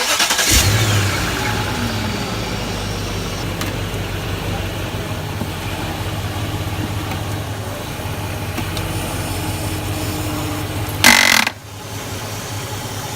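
Vehicle engine that has just started, running at a steady idle. About eleven seconds in comes one brief, loud grinding burst, the grinding noise the owner traces to the transfer case or transmission.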